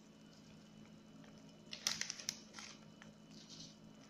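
Plastic crinkling briefly a few times about two seconds in, with a fainter rustle later, as plastic sheeting is handled. A faint steady hum lies underneath.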